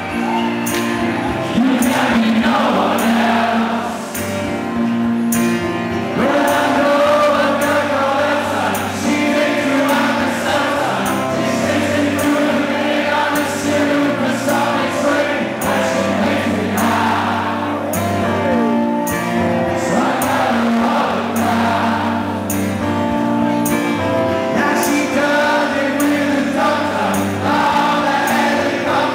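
Live rock band playing with sung vocals over a steady drum and cymbal beat, recorded from within a concert audience.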